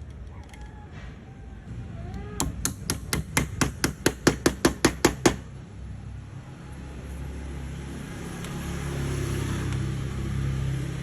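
A hammer striking a wooden dowel, most likely driving it into its hole: about a dozen quick, even blows, roughly four a second, that stop a little past the middle. A steady low hum follows and grows toward the end.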